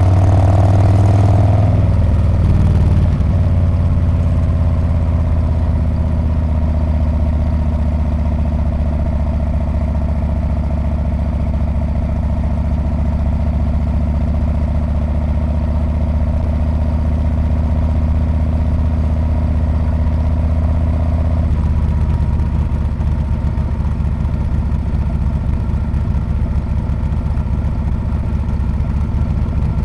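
Harley-Davidson Street Bob's V-twin engine and exhaust running steadily on the road. It is a little louder for the first two seconds, and the engine note changes about twenty seconds in.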